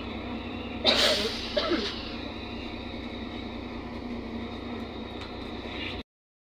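Inside a NefAZ 5299 city bus under way: the steady hum of its Cummins ISBe diesel with road noise, and a brief louder burst of noise about a second in. The sound cuts off abruptly near the end.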